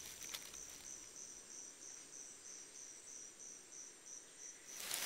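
Faint insect chirping: a steady, high, pulsing call of about three pulses a second that stops suddenly near the end, where a louder hiss takes over.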